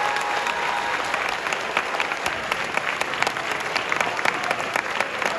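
Audience applauding and cheering, many hands clapping at once.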